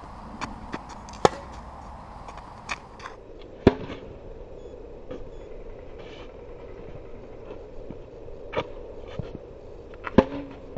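Tennis racquets striking the ball in a rally: sharp pops of strings on ball, loud ones about a second in, near four seconds in and the loudest about ten seconds in as the near player hits a forehand, with fainter hits and bounces between. A faint steady hum runs underneath.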